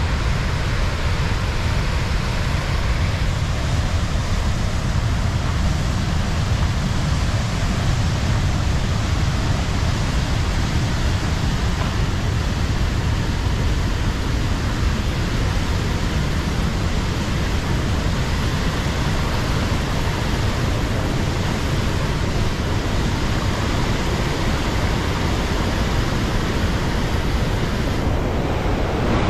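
A mountain river rushing over rocks in whitewater rapids: a loud, steady rushing noise with a deep low end.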